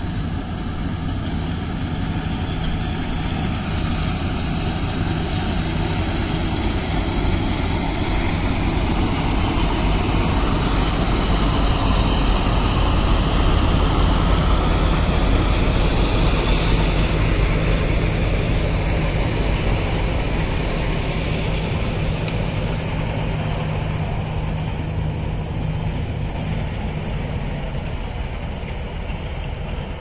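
Balkar combine harvester running at full work while cutting wheat: a steady engine and threshing-machinery hum. It grows louder toward the middle as the machine passes close, then eases off.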